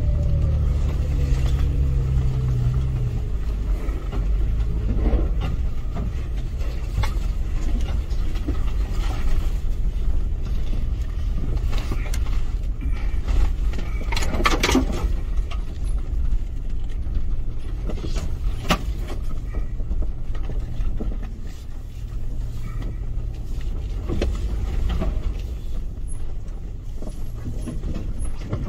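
Cabin noise of a Toyota FJ Cruiser crawling along a rough dirt forest track: a steady low rumble of engine and tyres, with occasional knocks and rattles over the bumps, the loudest about halfway through.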